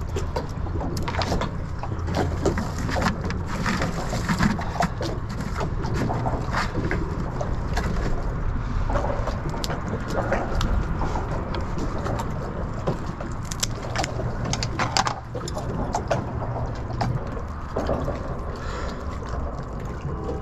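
Scattered clicks and knocks of fishing tackle and bait being handled aboard a small fiberglass skiff, over a steady low rumble.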